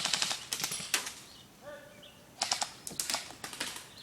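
Airsoft guns firing several short bursts of rapid clicking shots, with birds chirping in between.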